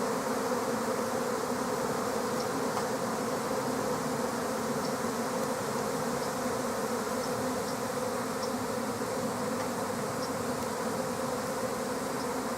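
A large swarm of bees in flight, buzzing as a dense, steady hum. The swarm is gathering around a cavity to settle and move in.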